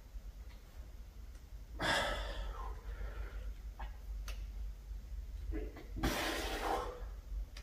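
A man's forceful exhalations of effort, two of them about four seconds apart, as he presses a dumbbell up during lying triceps extensions. A few light clicks fall between them.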